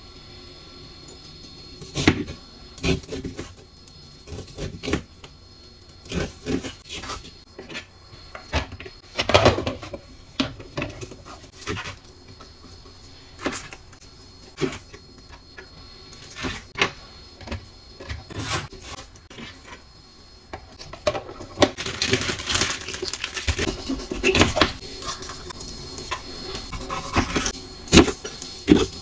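Kitchen knife cutting onion and green bell pepper on a cutting board: irregular knocks of the blade striking the board, with handling of the vegetable pieces. The knocks come thicker and busier about three quarters through.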